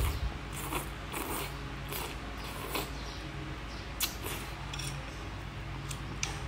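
Close-up eating sounds: rice noodles slurped and chewed in short separate bursts, over a steady low hum.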